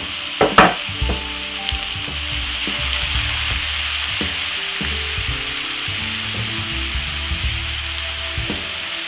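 Marinated beef strips sizzling steadily in hot oil in a non-stick stir-fry pan. About half a second in there are two short, loud scrapes, with a few lighter clicks later as the meat is stirred.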